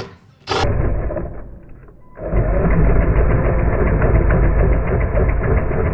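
Power drill boring a hole with a new bit: a short run, a brief letup about two seconds in, then a long steady run under load.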